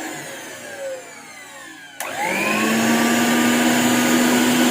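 Preethi Zodiac mixer grinder's 750-watt motor running with no jar fitted. It winds down over the first two seconds, then is switched on again about two seconds in and quickly rises to a steady high-speed whine.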